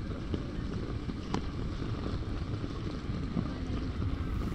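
Heavy rain falling on a city street, with a low rumble of wind buffeting the microphone. A single sharp tick comes a little over a second in.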